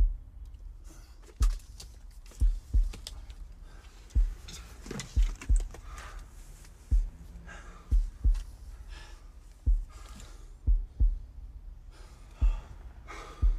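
Heartbeat: low double thumps, about one beat a second.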